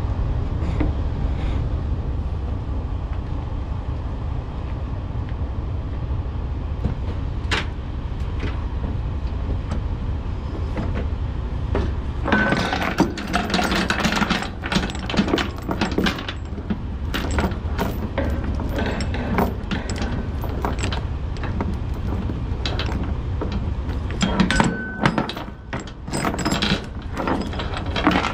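Steel tie-down chain and load binder rattling and clanking as the chain is handled on the trailer deck. There are only a few clicks at first; from about halfway through the clinks are dense and irregular, over a steady low rumble.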